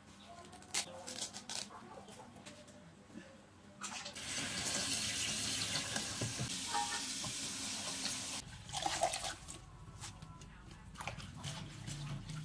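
A kitchen tap runs onto leafy greens in a plastic colander over a stainless steel sink, a steady splashing hiss for about four seconds in the middle. Before and after it, light rustling and clicking as the leaves are handled and swished in water.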